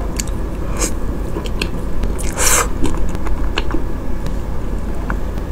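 Close-miked chewing of a mouthful of chocolate mousse cake: soft mouth clicks and smacks, with one louder mouth sound about two and a half seconds in.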